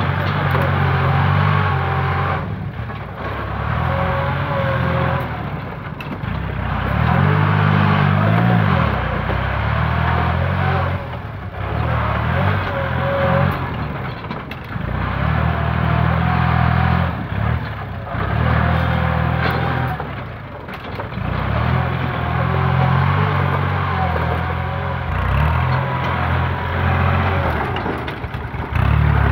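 Kubota compact tractor's diesel engine working under load as its front blade pushes and grades soil, the engine note swelling and easing every few seconds, with scraping of dirt under the blade.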